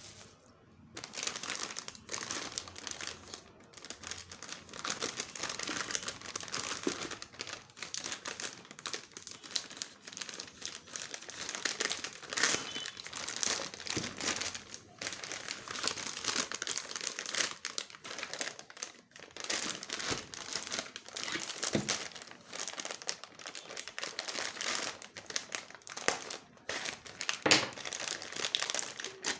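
Packaging crinkling and rustling as it is handled by hand, with many irregular crackles.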